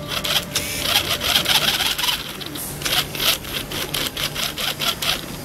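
Homemade RC car's small geared DC motor and wheels running over a tile floor: a rapid, irregular rasping rattle.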